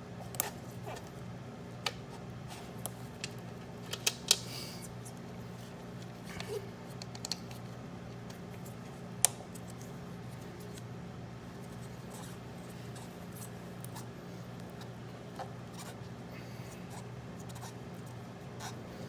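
Scattered sharp clicks and small knocks of hands working on a lawn mower, refitting the carburetor bowl, over a steady low hum. The loudest clicks come about 4 s in and about 9 s in.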